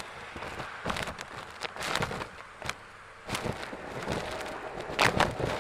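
Irregular knocks, clacks and rustling, about ten in all, with the loudest pair about five seconds in.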